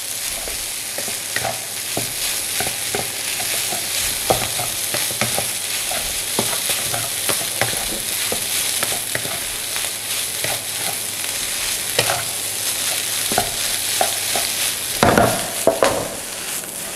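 Fried rice sizzling in coconut oil in a non-stick wok, stirred and turned with a wooden spatula that scrapes and taps the pan in quick, uneven clicks over a steady hiss. A louder clatter comes near the end as the pan is lifted off the flame and the rice is tossed.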